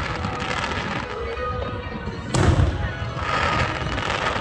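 Aerial fireworks shells bursting: one loud boom about two seconds in, followed by the crackle of the glittering stars as they burn out, and another boom right at the end.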